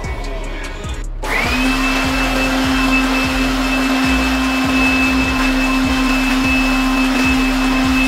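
Handheld electric air blower starting up about a second in with a quick rising whine, then running steadily at full speed with a high motor whine and a rush of air, blowing dust out of a split air conditioner's mesh filter.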